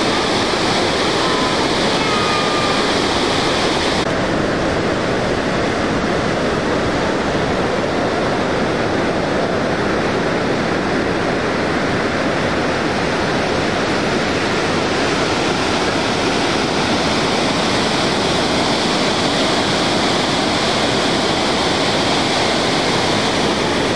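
Waterfall: a loud, steady, unbroken rush of falling water.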